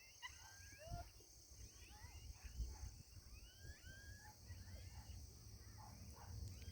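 Faint birdsong: several small birds chirping and whistling in many short notes that swoop up and down, over a steady high insect hiss and a low wind rumble on the microphone.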